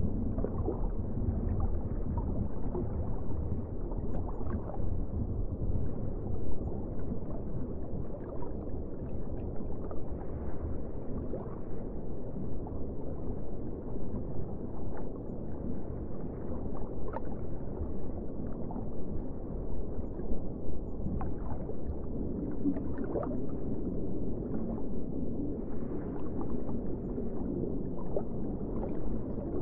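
Muffled underwater ambience: a steady low rumble of water, with small bubbling pops and gurgles here and there.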